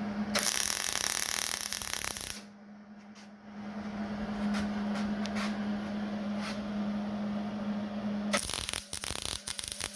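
MIG welder arc crackling as weld is laid into a worn-out pivot hole: a hard crackling run of about two seconds near the start, a steadier crackle through the middle over a low hum, and a dense sputtering run near the end.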